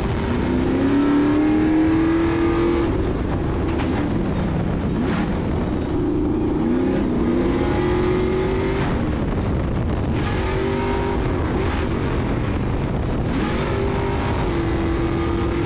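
A Stadium Super Truck's engine heard from inside the cab at race pace: its pitch climbs under acceleration, drops and wavers as it slows for corners, then climbs again, several times over.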